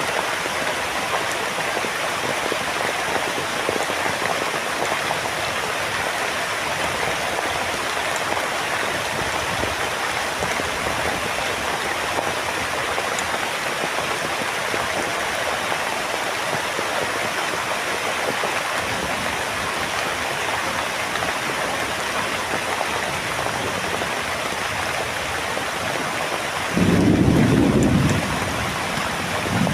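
Heavy rain falling steadily. Near the end, a brief low rumble of thunder is the loudest thing.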